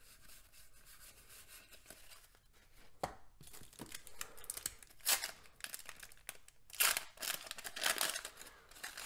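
Wax-paper wrapper of a 1989 Donruss baseball card pack being torn open and crinkled by hand. A series of short rips and rustles starts about three seconds in, after a quiet start.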